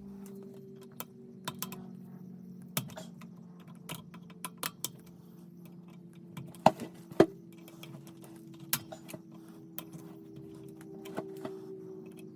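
Scattered sharp metallic clicks and clinks of tools and small parts being handled, the two loudest in quick succession about halfway through, over a steady low electrical hum.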